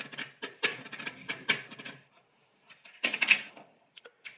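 Quick, irregular clicking and rustling from small objects being handled, dense for the first two seconds, then a pause, then a short burst of clicks at about three seconds and a couple of single clicks near the end.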